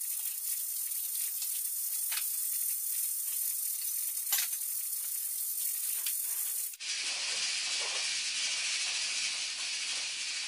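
A steady hiss of dinner being cooked in a kitchen, with a few sharp clinks. About seven seconds in it switches suddenly to a plainer steady hiss.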